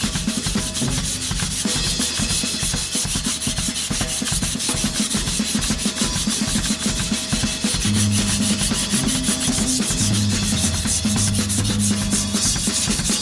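Gyuto kitchen knife blade being ground on a whetstone in rapid, even back-and-forth strokes, the steel rasping on the wet stone as the too-thick blade is thinned.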